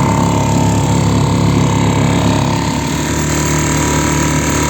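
Mercury 3.5 hp outboard motor running steadily while being run in. Its engine note drops to a lower, steady speed about three seconds in.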